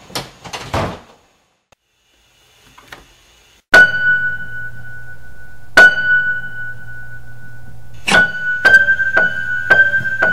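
Piano score: a single high note struck loudly and left ringing over a low hum, struck again about two seconds later, then repeated several times in quicker succession near the end. A few brief knocks and rubs come in the first second, followed by a short near-silence before the first note.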